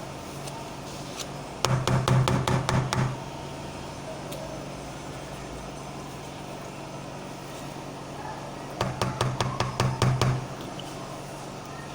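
Two bursts of rapid knocking, each about a second and a half of eight to ten quick strikes, the first about two seconds in and the second near the end, over a steady low hum.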